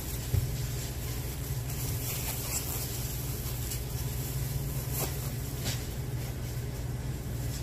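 Steady low machinery hum, with a few faint knocks and plastic-bag rustles as groceries are packed into plastic bags.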